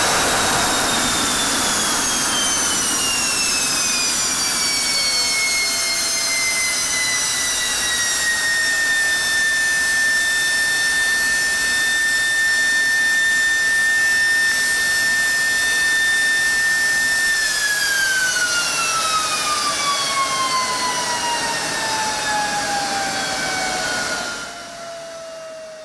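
General Electric F110-GE-100 turbofan, uninstalled on a test stand inside a hush house, spooling down. Over the first several seconds a high turbine whine over a rushing noise falls in pitch. It then holds steady for a while and falls again as the engine winds down, fading out near the end.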